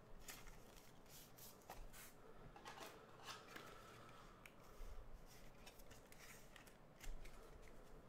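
Faint rustling and small clicks of trading cards being handled and slid against one another.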